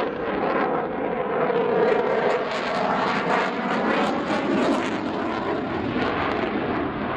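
Eurofighter Typhoon FGR4 jet fighter displaying overhead: loud, steady jet noise from its twin turbofan engines, with a crackling edge and a slowly swirling, phasing sweep as it manoeuvres.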